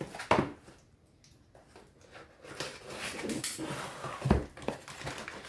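Packaging being handled and opened: a sharp click near the start, then rustling with a dull thump about four seconds in.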